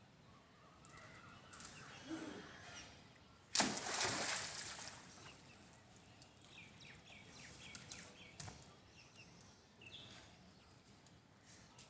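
A monkey splashing in a shallow muddy pond: one sudden loud rush of water about three and a half seconds in, fading over a second or so. Birds chirp faintly around it.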